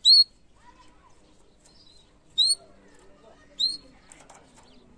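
Domestic canary giving three short, loud chirps, each sweeping upward in pitch: one right at the start, then two more about two and a half and three and a half seconds in.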